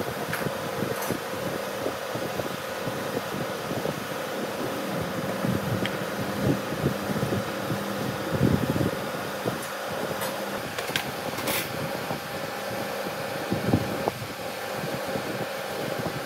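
A steady mechanical hum, fan-like, under scattered light knocks and clacks of wooden parts being handled and fitted together by hand.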